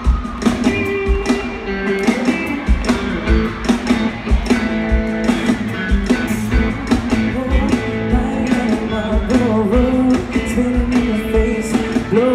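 Live band playing a pop-rock song through a stage PA: a steady kick-drum beat with keyboard and guitar, and singing at times.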